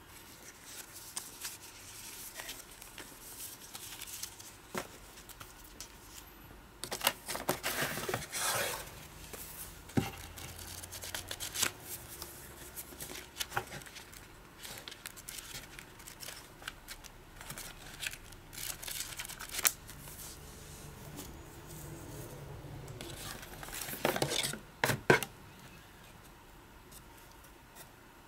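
Paper leaflets and an instruction booklet handled and leafed through, with rustling and crinkling of paper and packaging in a cardboard box. There are louder bursts of crinkling about a quarter of the way in and again near the end.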